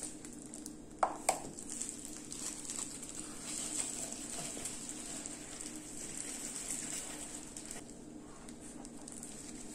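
Soft rustling of paper towels handled with plastic-gloved hands, with two light taps about a second in, over a faint steady hum.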